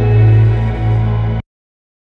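Background music with sustained low chords that cuts off abruptly about a second and a half in, leaving silence.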